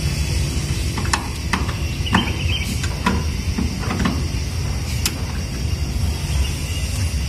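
Scattered light clicks and knocks from hand work on an electricity meter box fixed to a wooden post, over a steady low rumble.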